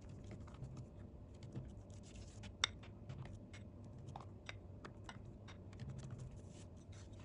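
Silicone pastry brush dabbing and spreading tahini on rolled-out dough, faint irregular taps and clicks, with one sharper click about two and a half seconds in.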